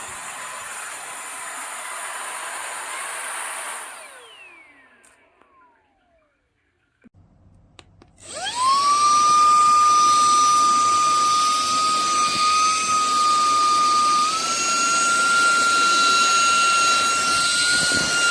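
Cordless handheld vacuum cleaner running with a loud rush of air, then switched off so its motor winds down in a falling whine. After a couple of clicks it is switched back on and spins up to a steady high whine over the rushing air, rising slightly in pitch about two-thirds of the way through.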